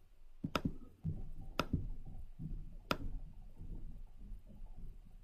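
Computer mouse clicking: a quick pair of sharp clicks about half a second in, then two single clicks about a second and about two and a half seconds later. A low, uneven rumble from handling at the desk runs under them.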